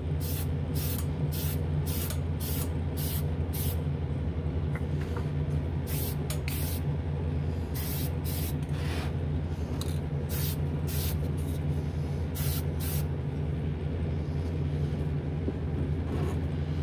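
Short hissing bursts from an aerosol can of Testors Extreme Lacquer, fogging a light mist coat of gold metallic onto a model car body. The bursts come quickly, about three a second, for the first few seconds, then scattered, with a last one near the end. Underneath is the steady low hum of the spray booth's exhaust fan.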